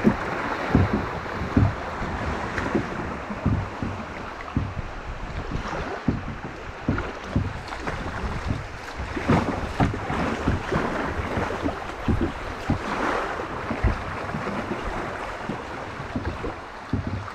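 Fast creek water rushing and splashing past a kayak's hull through riffles, with wind on the microphone and frequent irregular low thumps against the hull.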